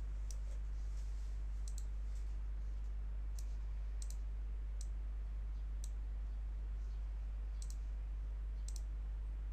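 Computer mouse clicking about a dozen times at irregular intervals, some clicks in quick pairs, over a steady low hum.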